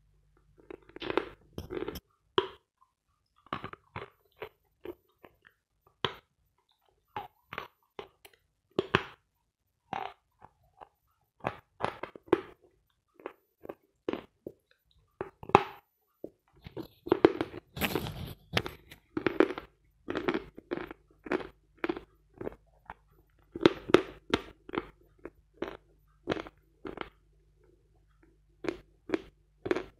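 A person biting and chewing a block of Vatutin chalk, miked close to the jaw: a run of sharp, separate crunches, with the loudest and densest crunching a little past halfway.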